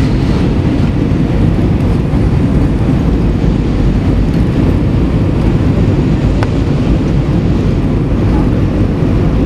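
Steady low roar inside the cabin of an Airbus A320 in flight, heard from a window seat over the wing: engine and airflow noise, even and unbroken.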